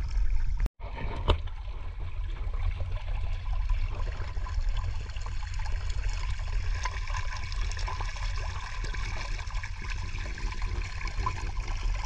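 Floodwater splashing and churning along the hull of a moving wooden boat, an even rushing hiss over a steady low rumble. The sound drops out briefly about a second in.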